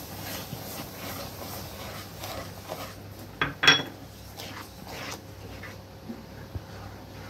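Sugar poured into a pan of simmering vermicelli with a soft, steady hiss that stops about three seconds in. A wooden spatula then stirs it in, knocking sharply twice against the pan, followed by a few lighter taps and scrapes.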